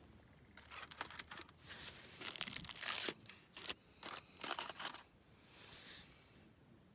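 A run of rustling, crinkling handling noises, loudest in the middle, with a softer rustle near the end.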